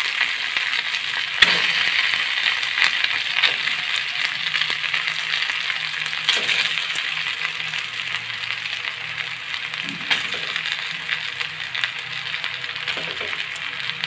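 Cubes of steamed moong dal sizzling in hot oil in a steel kadhai as they are sautéed, with a sharp metallic clink now and then, the first and loudest about a second and a half in, as the pieces are stirred against the pan.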